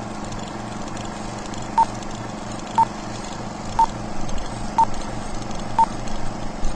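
Short electronic beeps, all at one pitch, evenly spaced one a second, starting a little under two seconds in, over a steady hum and hiss.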